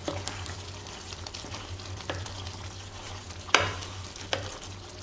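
Curry chicken stew simmering and bubbling in a pan while a spoon stirs it, with a few sharp knocks against the pan, the loudest about three and a half seconds in.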